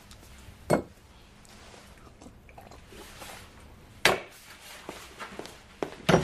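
Sharp clinks and knocks of a glass and a pill bottle being handled on a hard tabletop: three distinct strikes, about a second in, about four seconds in and near the end, over quiet room tone.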